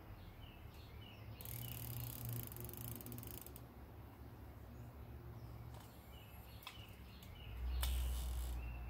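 Small birds chirping now and then over faint outdoor background, with a stretch of hiss about a second and a half in and a louder rush near the end.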